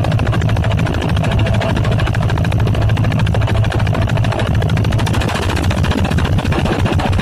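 A fishing boat's engine running steadily with a fast, even knock.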